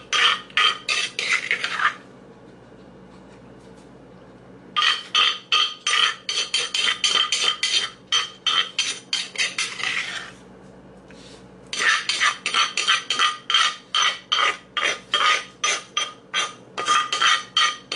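Pestle pounding cucumber salad in a clay mortar: rapid, sharp knocks about three or four a second, in three runs with two short pauses between them.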